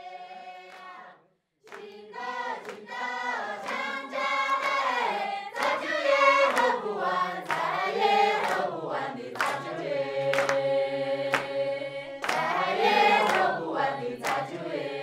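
Soundtrack music: voices singing together as a choir over a steady percussive beat, after a brief pause about a second in.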